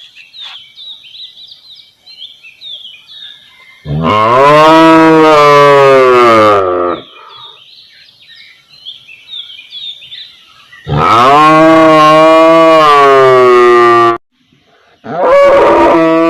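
A cow mooing three times, each a long moo of about three seconds with a slight rise and fall in pitch. The third moo begins near the end.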